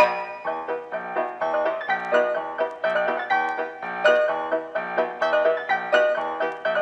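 Piano music with a steady, bouncing rhythm: a silent-film accompaniment.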